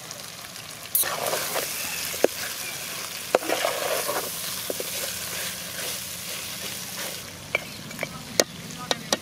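Chicken pieces and coriander leaves sizzling in a large pot while a perforated metal skimmer stirs them. The sizzling gets louder about a second in, and sharp clicks of the spoon against the pot come now and then, several close together near the end.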